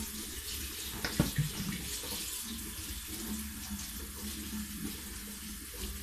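Kitchen tap running a steady stream of water through flaxseeds in a small metal mesh strainer, splashing into a stainless steel sink, with one sharp knock about a second in.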